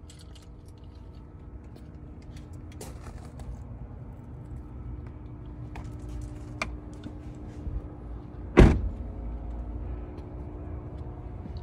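Chevrolet 2500 pickup's door shut with a single heavy thud about eight and a half seconds in, after a few small clicks and handling sounds, over a faint steady hum.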